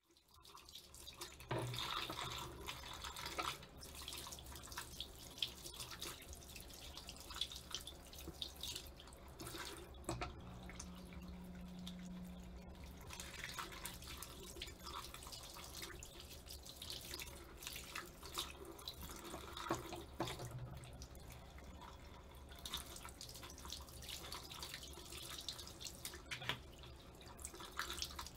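Faint water running from a tap into a sink, with scattered small clicks and knocks over a low steady hum.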